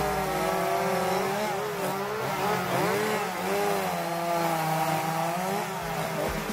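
Chainsaw engine running while carving wood, its pitch wavering up and down as the throttle and load change.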